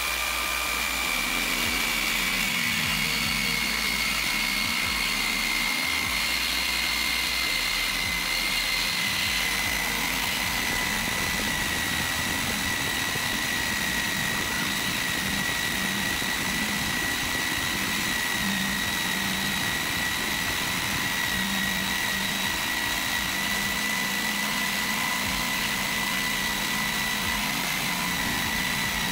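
DeWalt jigsaw running at its lowest speed setting, its Starrett BU214 bi-metal blade sawing through a solid iron bar: a steady high whine that sags slightly in pitch over the first ten seconds or so, then holds.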